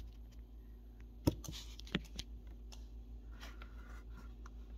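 A few sharp clicks and light knocks, the loudest about a second in, from lip gloss tubes and their cardboard boxes being handled on a tabletop, over a low steady hum.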